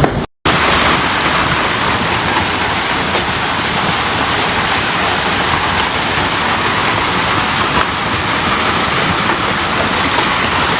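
Heavy thunderstorm downpour pelting surfaces: a dense, steady hiss with fine crackle, after a brief cut to silence at the start.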